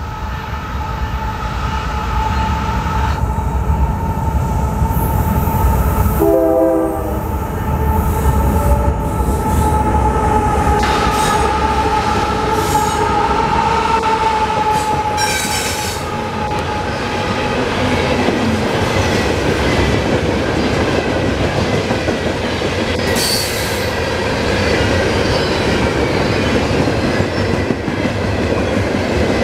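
Freight train passing close by: a diesel locomotive goes by, then coal hopper cars roll past with rumbling, wheel clatter and a steady high-pitched wheel squeal on the curve.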